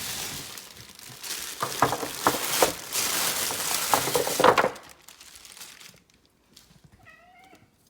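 Crinkly rustling with a few sharp knocks as a batch of harvested sweet potatoes is handled and put on to be weighed. It stops about five seconds in.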